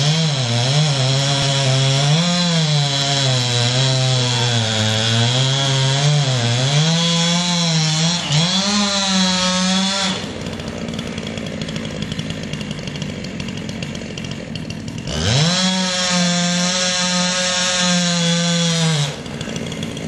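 Chainsaw felling a tall conifer, running at high revs under load with its pitch wavering as it cuts, for about ten seconds. It then drops off, revs back up with a rising whine about fifteen seconds in, and runs at a steady high pitch for a few seconds before dropping off again.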